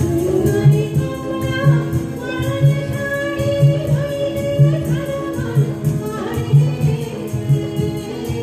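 A woman singing a Bengali song live, backed by a band with tabla, harmonium, cajon, keyboard and guitar. A low drum beat lands about once a second under the held, gliding vocal line.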